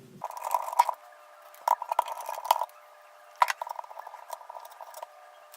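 A precision screwdriver backing out the tiny screws inside an iPhone 6. It gives short bursts of scratchy grinding with a couple of sharp clicks, about a second and a half apart in the middle.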